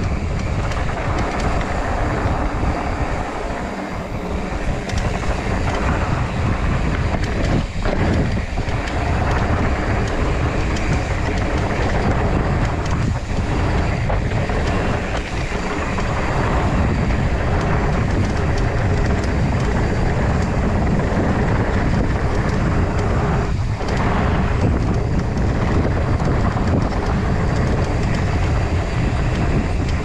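Mountain bike rolling fast down a packed-dirt trail: steady wind buffeting the microphone over the hum and rattle of tyres on dirt.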